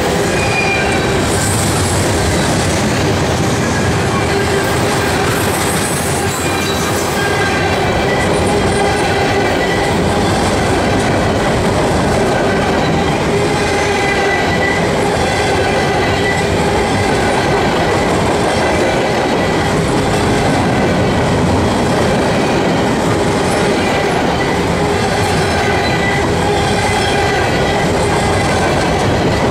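A CSX freight train's cars rolling past close by: steel wheels on the rails making a steady, loud rolling rumble, with a few steady ringing tones from the wheels running through it.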